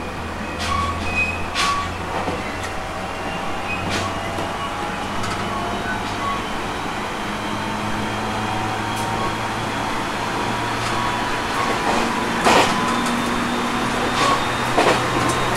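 Aoimori Railway 701 series electric train running, heard from inside the car. A low motor hum creeps up in pitch as the train gathers speed, with sharp clacks from the wheels at rail joints now and then.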